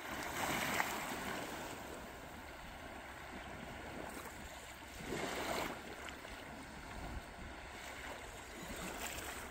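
Small waves washing on a sandy shore with wind noise, a steady hiss that swells twice, near the start and about halfway through.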